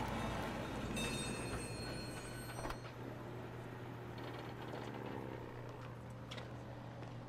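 Vintage electric tram running past on street rails, with a brief high metallic ringing about a second in and a few sharp clicks; louder at first, then fading.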